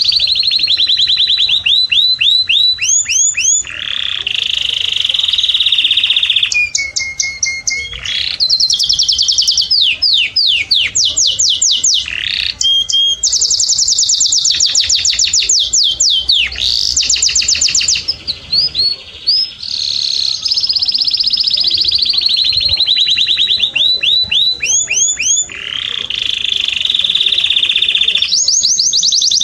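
Domestic canary singing a loud, continuous song made of fast trills: runs of quickly repeated notes, some sweeping down and some rising, changing from one run to the next, with a brief held low whistle about seven seconds in.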